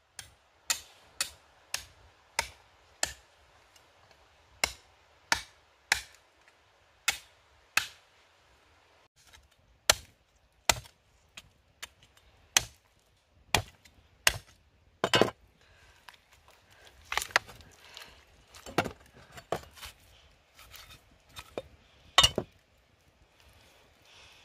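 Repeated chopping strikes, a blade cutting into something on a hard surface. They come about two a second at first, then slower and uneven, with a louder double blow a little past the middle.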